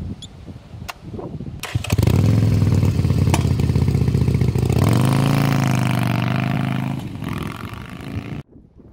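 V-twin cruiser motorcycle engine started about two seconds in and idling with a steady low beat. Near the middle it revs up and pulls away, and the engine sound fades as the bike rides off. A couple of faint clicks come before it starts.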